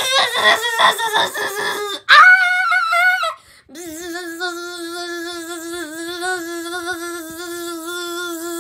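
A person's voice making toy-play vocal noises: quick squeaky chatter, a loud high squeal about two seconds in, then one long, slightly wavering sung note held for about six seconds.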